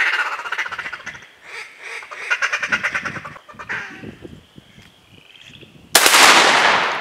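Duck call blown in two runs of rapid quacks, then a single shotgun blast about six seconds in.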